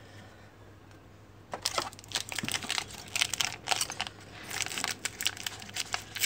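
Crinkling of a plastic trading-card pack wrapper being handled and opened: quiet at first, then a dense run of crackles starting about a second and a half in.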